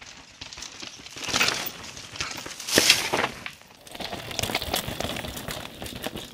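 Downhill mountain bikes riding over a rocky, gravelly trail: tyres crunching and skidding on loose stones with the clatter of the bikes. The sound comes in surges, loudest about a second and a half and three seconds in.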